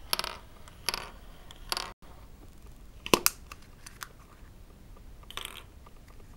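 Small plastic toy pieces handled on a wooden table. First come three short plastic rattles as a finger works a small turtle toy. About three seconds in, a yellow Kinder Surprise plastic capsule is snapped open with a sharp click, the loudest sound, followed by a few small ticks and a brief rustle of the paper-wrapped contents.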